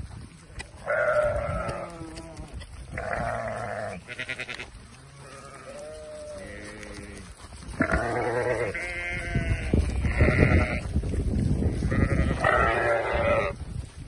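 Sheep bleating again and again, about eight or nine calls from several animals, some high and some deeper, one long and wavering. They are calling for their morning feed as a keeper with a feed bucket walks among them.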